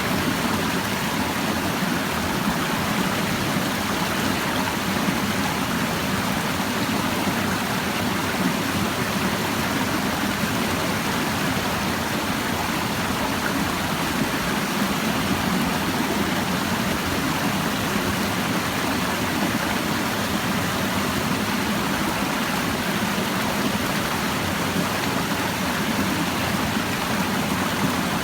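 Clear shallow stream babbling steadily, an even rush of flowing water.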